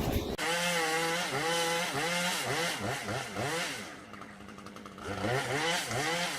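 Chainsaw engine revved repeatedly, its pitch rising and falling over and over as the throttle is blipped, easing off briefly around the middle before revving again.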